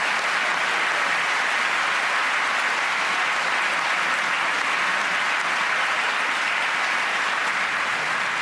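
A large audience applauding, a dense, even clapping that holds steady throughout.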